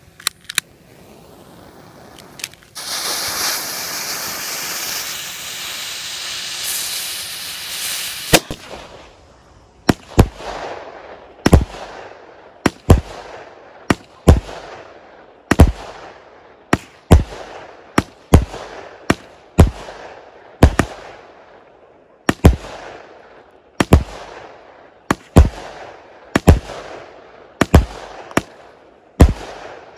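A 19-shot Predator firework cake being set off: a loud hiss lasting about six seconds, then the cake starts firing shot after shot, roughly one every second and a half, each a sharp bang with a fading tail.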